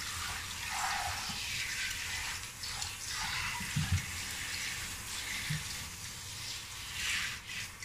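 Handheld shower spraying water onto a wet chihuahua and splashing into the plastic basin it stands in, a steady hiss throughout. A couple of low thumps about four seconds in.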